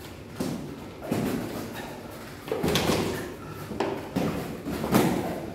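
Boxing gloves landing during sparring: a run of sharp, irregular thuds, about seven of them, the loudest near the end.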